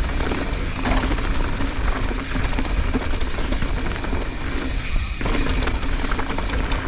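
Wind rushing over the helmet-camera microphone and mountain bike tyres rolling over a dirt trail during a fast descent, with a few sharp clicks and rattles from the bike.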